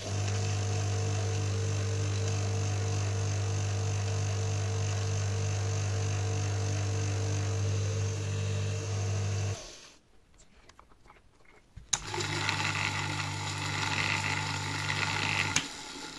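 Dishwasher pump motor running with a steady mains hum for about ten seconds, then switched off and spinning down quickly. After a short pause a dishwasher pump motor runs again for about four seconds, this time with a harsher, higher-pitched whine over the hum.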